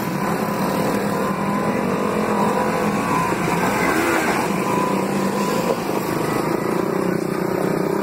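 Side-by-side UTV engines running under load and revving up and down as the machines crawl up a steep, rutted dirt hill.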